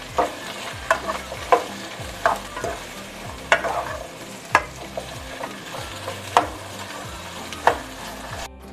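Potato wedges sautéing in olive oil in a nonstick pan, a steady sizzle under a plastic spoon that stirs and turns them, with about a dozen sharp clacks of spoon and wedges against the pan. The sound breaks off for a moment near the end.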